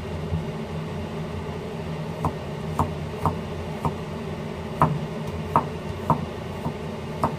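Cleaver knocking on a wooden cutting board as garlic cloves are sliced: about nine sharp, separate knocks from about two seconds in, roughly one every half second, over a steady low hum.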